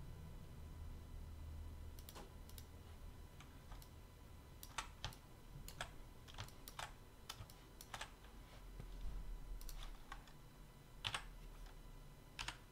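Computer keyboard keys tapped in short irregular runs, faint sharp clicks over a low hum.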